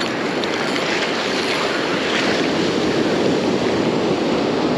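Ocean surf washing onto the beach, a steady rush of noise, with wind buffeting the microphone.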